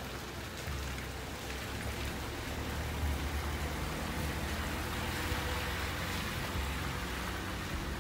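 Steady rain falling on a street and rooftops, an even hiss, with a low rumble underneath.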